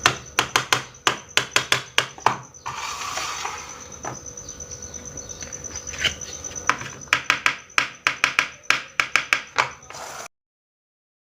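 Small plastic toy kitchen pieces being handled and set down: a quick run of sharp clicks and taps, with a stretch of rustling about three seconds in. It cuts off suddenly about a second before the end.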